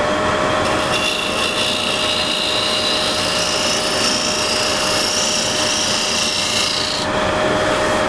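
Woodturning scraper, with a burr freshly rolled by a screwdriver, cutting wood spinning on a lathe: a steady rasping scrape that starts just after the beginning and stops abruptly about a second before the end. The lathe motor hums at a steady pitch throughout.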